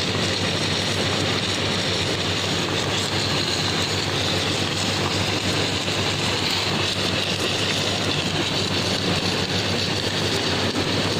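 Submerged arc welding machine running during a weld: a steady low hum under an even hiss.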